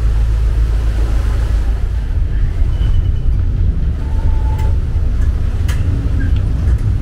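A river tourist boat's engine running with a steady low rumble as the boat comes alongside the pier, with a couple of sharp clicks past the middle.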